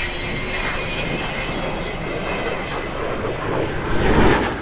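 Jet aircraft engine noise: a steady rush with a high whine, swelling about four seconds in, then falling away.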